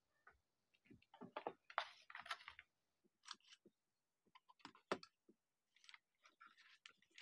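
Faint handling noises from a toy pistol's plastic magazine, shell casings and paper instruction sheet: a run of rustles and small clicks in the first few seconds, one sharper click about five seconds in, then more light clicks and rustling.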